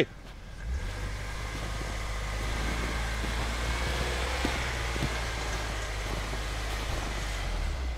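An SUV driving slowly through an off-road rut, its engine running steadily under a constant haze of road and tyre noise.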